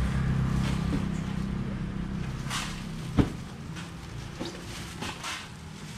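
Low engine rumble of a vehicle fading away over the first few seconds, with scattered knocks and clatter of styrofoam boxes being handled, the loudest a sharp click about three seconds in.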